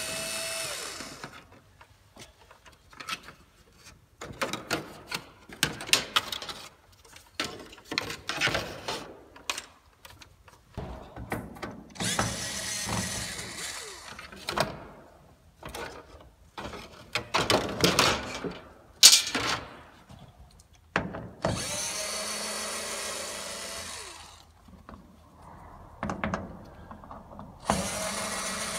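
Power drill/driver running in several steady spells of one to three seconds, taking out the screws that hold the sun visors and trim to the truck's cab roof. Between the runs come sharp clicks and knocks of parts and tools being handled.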